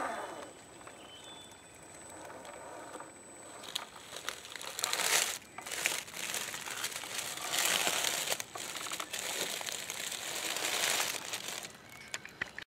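Dry fallen leaves crunching and rustling in several bursts, the loudest about halfway through and over the next few seconds, with a few sharp snaps.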